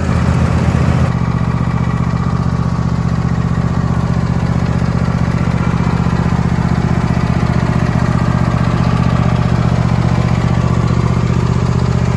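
John Deere D140 riding lawn mower engine running. It is uneven for about the first second, then settles into a steady run.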